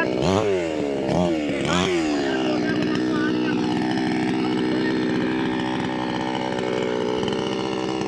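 Petrol chainsaw revved in three quick blips, its pitch falling back after each, then running steadily at a low, even speed.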